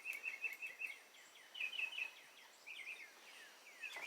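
Songbird singing: a quick run of about eight short notes, then a few separate down-slurred whistles.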